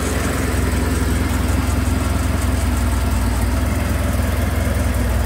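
1979 Triumph Dolomite Sprint's 16-valve slant-four engine idling steadily on about a fifth choke, just after a cold start.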